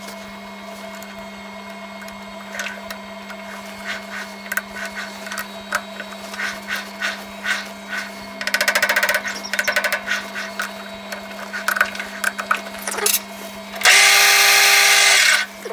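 Metal clicks and clinks of a three-jaw lathe chuck being turned by hand and its jaws tightened on a short bar, over a steady low hum. Near the end the lathe spindle runs loudly for about a second and a half.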